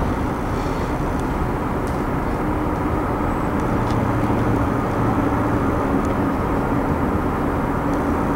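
Detroit Diesel 40 Series diesel engine of a Kohler 125 kW generator set running steadily, a constant engine drone with a low hum.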